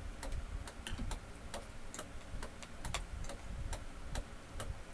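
Eating sounds: spoons and forks clicking and scraping on plates, with mouth sounds of chewing, as light unevenly spaced clicks about three a second.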